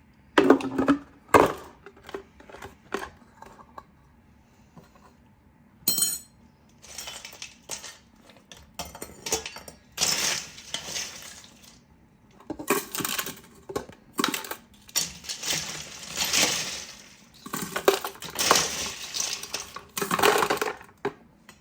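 Ice cubes clinking and rattling against glass jars as ice is loaded around the capped ice-cream jar inside the larger jar, for chilling the mix. A few sharp knocks come first, then from about a third of the way in, repeated bursts of rattling ice.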